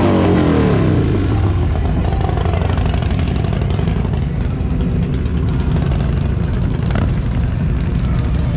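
A vehicle engine is revved, its pitch falling away over the first second, then runs on with a steady low rumble.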